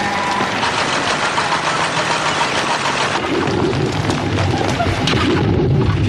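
A loud, steady rumbling roar, with a voice heard over it from about halfway through.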